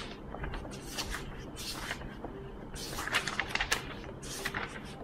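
Pages of a paperback book being turned and smoothed by hand: a run of papery swishes and rustles with a few crisp snaps of paper, busiest and loudest about three seconds in.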